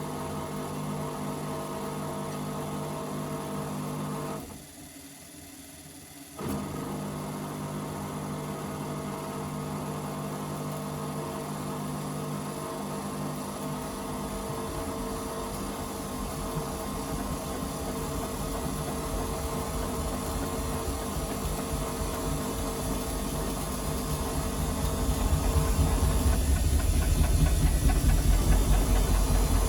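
Washing machine motor running with a steady hum. It stops for about two seconds near the start, then runs again, growing rougher and louder toward the end with a crackling rattle. Some take this crackle for worn motor brushes or a failing motor.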